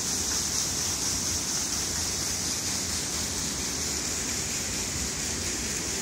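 Steady rush of water falling and splashing at a large mill waterwheel, an even hiss with a low rumble beneath.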